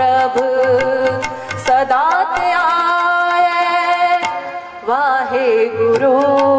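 A woman singing Gurbani kirtan into a microphone, drawing out long held notes over evenly spaced tabla strokes, with a brief break in the singing a little past four seconds in.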